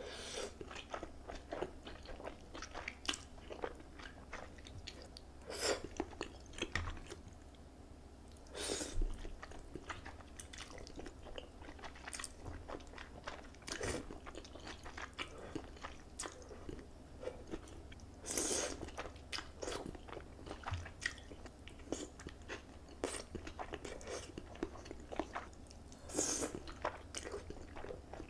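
Close-miked eating: a person chewing and biting food, with many small mouth clicks and a few louder bites several seconds apart.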